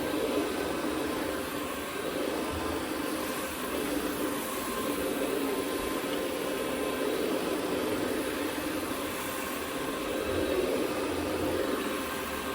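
Carpet cleaning machine running steadily: a continuous vacuum-like noise with a low drone, unbroken throughout.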